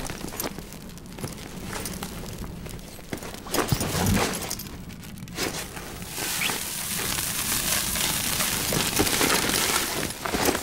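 Film sound design made of scattered crackles, clicks and crumpling noises, thickening into a dense crackling hiss about six seconds in.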